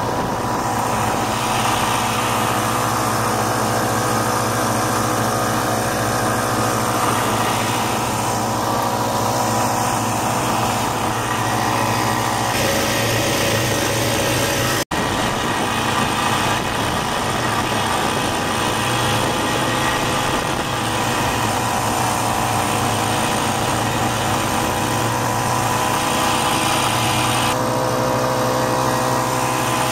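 Single-cylinder two-stroke engine of a 1967 Ski-Doo Olympique snowmobile running at a steady cruising speed under way, with an even buzz. The sound cuts out for an instant about halfway through.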